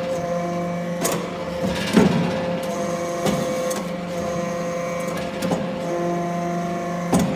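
Hydraulic metal briquetting baler running: a steady hum from its hydraulic power unit whose tone shifts a few times, with several sharp metallic knocks, the loudest about two seconds in.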